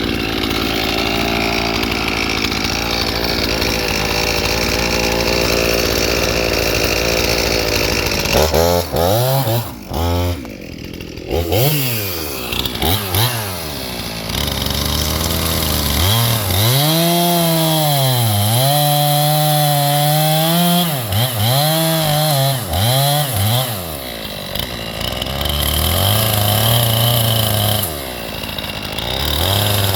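Skil electric chainsaw running in a plunge cut while felling a tree. It runs steadily at first; from about eight seconds in its motor repeatedly slows and picks up again, with a few short breaks.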